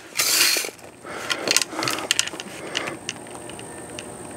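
Daisy Red Ryder lever-action BB gun being cocked and handled: a short rasp of the lever and spring at the start, then light clicks and rattles as the gun is raised to the shoulder.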